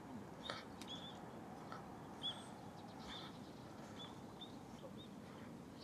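A small bird chirping faintly: short, high, arched notes repeated every half second to a second over a quiet background hiss.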